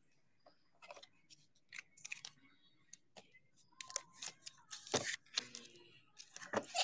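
Trading cards being handled and sorted by hand: scattered light clicks, taps and rustles of card stock.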